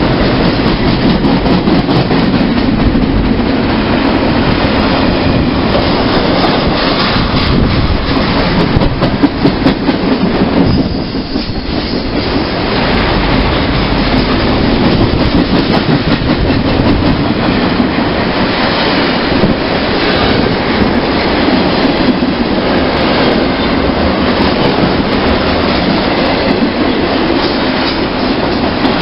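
Double-stack intermodal freight train passing close by: a loud, steady rumble of steel wheels on rail with clicks and clacks of wheels over rail joints, dipping briefly about eleven seconds in.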